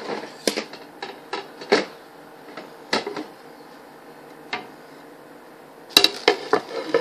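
Irregular sharp clicks and knocks from objects being handled on a kitchen tabletop, with a quick flurry of knocks about six seconds in.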